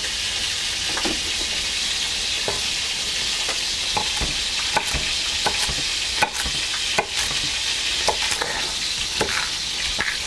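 Duck pieces browning in olive oil and butter in an enameled cast iron dish give a steady sizzle. Over it, a chef's knife chops carrot on a wooden cutting board in short, irregular knocks roughly once a second.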